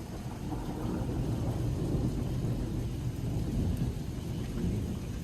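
Thunderstorm: heavy rain falling steadily under a low rumble of thunder.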